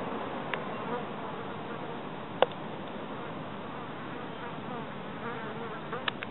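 A flying insect buzzing over steady outdoor background noise. Three sharp clicks stand out, the loudest about two and a half seconds in.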